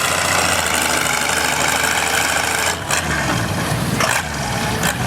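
Farm tractor engine running steadily, its note shifting about three seconds in with a couple of brief dips.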